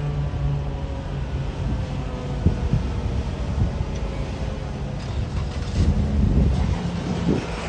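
Federal Signal 2001-SRNB electromechanical siren winding down after its Alert tone, its pitch sliding slowly lower and fading away over the first few seconds. A low, uneven rumble of wind and background noise is louder throughout.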